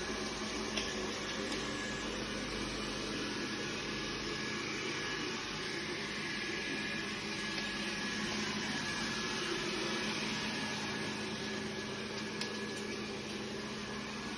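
Robot vacuum cleaner running: a steady motor whir with a constant low hum and a couple of faint clicks.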